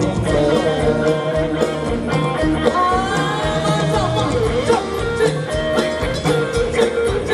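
Live Thai ramwong dance band music: a steady drum beat under a melody line that slides in pitch.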